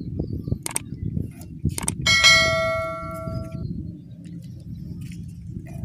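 Bell "ding" sound effect of a subscribe-button overlay: two short clicks, then about two seconds in a single bright bell chime that rings out and fades over a second and a half. A steady low rumble runs underneath.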